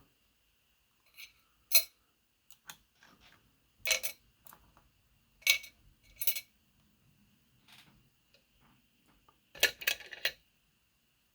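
Small metal clicks and clinks of lock picks and tension tool against a just-picked Medeco Biaxial lock as it is handled: a handful of separate sharp taps, then a quick cluster of them near the end.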